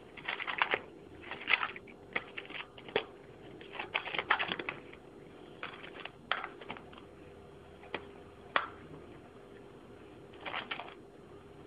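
A cat eating Iams tuna and herring food from a foil tray: irregular bursts of crackly chewing and licking clicks, in clusters every second or two with gaps between.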